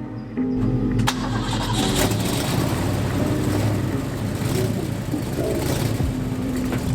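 A car engine starting about half a second in and then running steadily, with a sharp click about a second in, over background music.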